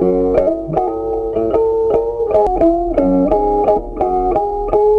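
Background music: a melody of quick plucked guitar notes.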